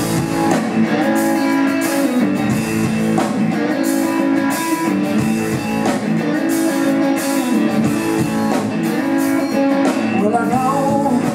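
Live band playing the instrumental intro of a blues-rock song: electric guitar over bass, keyboard and a drum kit with steady cymbal strokes.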